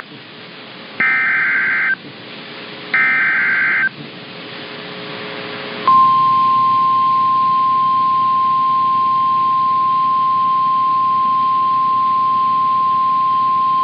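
Emergency Alert System SAME header on NOAA Weather Radio: screechy digital data bursts about a second long, sent twice a second apart, followed after a short stretch of hiss by the steady single-pitched Weather Radio warning alarm tone starting about six seconds in. Together they signal that a new warning broadcast is about to follow.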